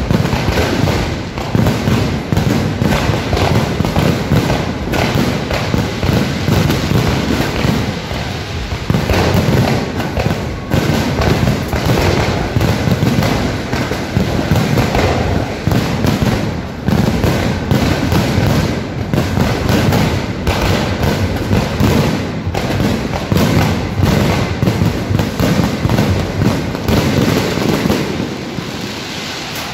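A fireworks display going off as a continuous barrage of rapid bangs and pops with no break, slightly quieter over the last couple of seconds.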